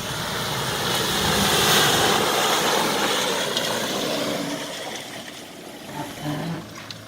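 Toyota Fortuner SUV driving through a shallow stream: its engine runs under a broad rushing noise that swells about two seconds in and then fades.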